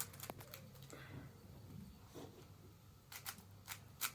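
Plastic layers of a 5x5 puzzle cube clicking as they are turned, a few scattered sharp clicks with more of them near the end.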